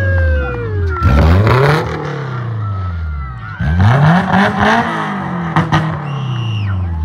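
Car engine revving up and down over and over as the car spins donuts, its tyres spinning on the pavement with bursts of tyre noise at the revs about a second in and again around four seconds in.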